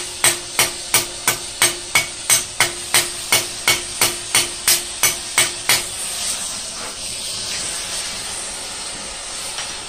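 Small Scandinavian-style cross-peen hammer striking the end of a steel rod clamped upright in a vise, about three blows a second over a steady ring, upsetting the rod end into a head. The blows stop about six seconds in, and a gas torch flame hisses steadily as it heats the rod.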